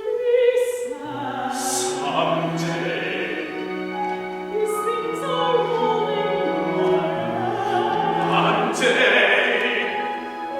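Operatic singing with instrumental accompaniment in a contemporary opera: sustained, wavering sung lines, with lower held notes joining about a second in.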